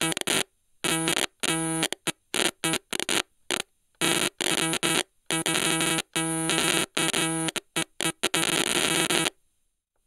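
Stylophone playing a low, buzzy tone that glitches: it stutters in irregular short bursts, cutting in and out abruptly, with a longer gap near the end.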